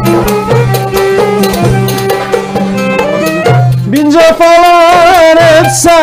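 Turkish folk ensemble playing an instrumental passage: darbuka and frame drum keep the beat under violin. About four seconds in, the violin takes up the melody with strong vibrato.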